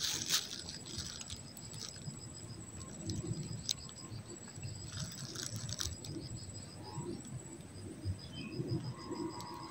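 Quiet outdoor background: a rapid, evenly repeated high chirping that comes and goes over a faint steady high whine. Low rustling and a few soft clicks sit beneath it.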